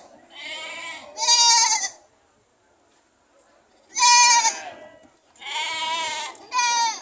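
Goat bleating loudly in high, wavering calls: two calls back to back, a pause of about two seconds, then three more in quick succession.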